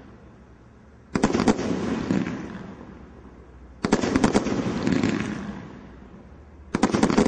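Magical Palms aerial fireworks bursting three times, about two and a half to three seconds apart. Each burst is a quick cluster of sharp bangs followed by a noisy tail that fades over about two seconds, as the gold palm stars fall.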